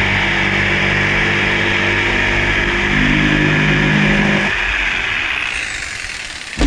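Corded jigsaw cutting a curve through plywood, its motor running steadily. The motor note drops about three seconds in, then cuts off about four and a half seconds in and whines down over the next second. A sharp knock comes at the very end.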